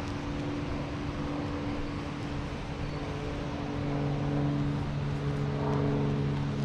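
Steady hum of a motor engine running, growing louder about four seconds in.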